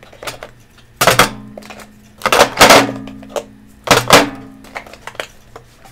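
Hard makeup containers knocking and clattering on a tabletop as they are pushed aside, in three bursts about a second apart, each with a short ringing after it.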